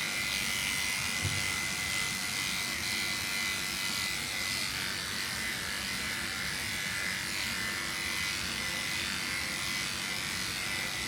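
Electric pet grooming clippers running with a steady high buzz while shaving a cat's fur.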